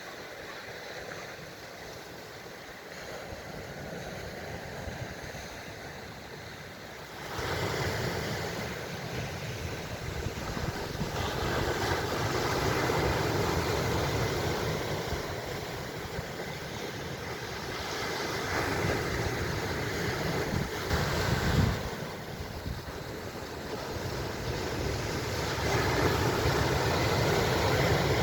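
Ocean surf washing in, swelling and easing several times, the loudest about 7, 13, 21 and 27 seconds in, with wind rumbling on the microphone.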